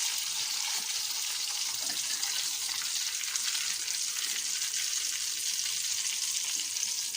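Hot oil sizzling steadily as crumb-coated stuffed squid shallow-fries in a pan.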